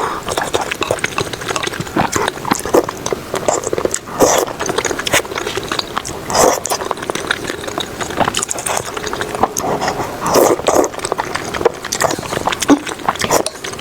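A person eating thick phở noodles close to the microphone: chewing and mouth noises coming at irregular intervals.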